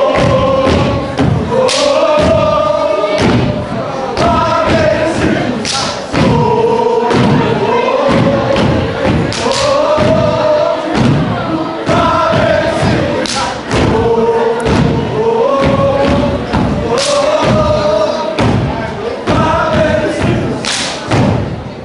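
Step team stomping and clapping in a driving rhythm while chanting in unison, the chanted lines held and repeated in phrases over the stomps.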